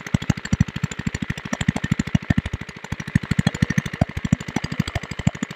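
Small Chinese single-cylinder diesel engine running a water pump at full power, a steady rapid chugging of about ten beats a second.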